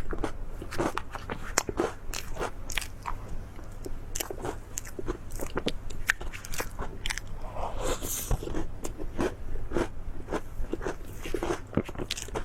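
Crunchy food being bitten and chewed close to the microphone: a quick, irregular run of crisp crunches.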